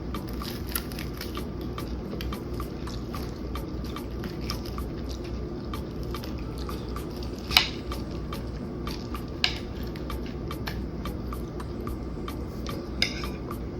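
Close-up eating sounds: biting and chewing crispy fried chicken, with many small crackly clicks and three sharper clicks, the loudest a little past halfway. A steady low hum runs underneath.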